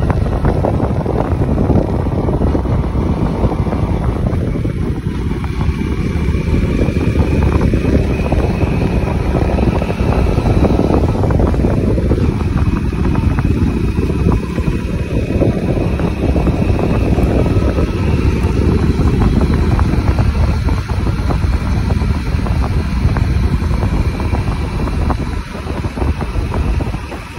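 Heavy wind buffeting the microphone of a moving Hero Splendor motorcycle, with its single-cylinder four-stroke engine running steadily underneath. The noise drops slightly near the end.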